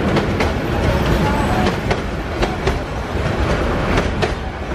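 Passenger train coaches rolling past with a steady rumble, the wheels knocking over the rail joints, often in quick pairs.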